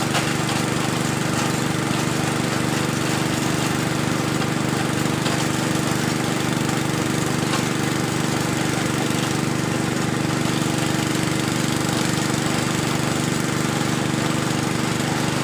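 Small engine of a well-drilling rig running steadily under load, a constant mechanical drone.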